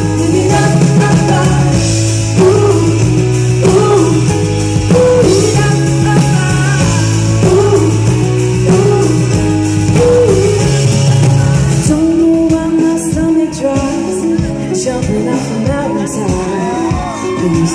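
Live pop band heard from the audience: a woman singing over acoustic and electric guitars and drums. About twelve seconds in the steady low bass line drops out, leaving lighter drums and guitar under the voice.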